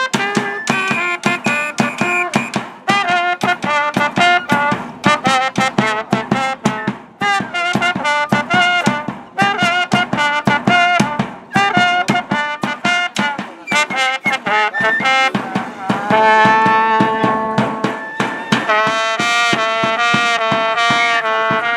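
A small street band of trumpet and bass drum playing a lively tune, the bass drum keeping a steady quick beat under the trumpet melody. About sixteen seconds in, the melody turns to long held notes.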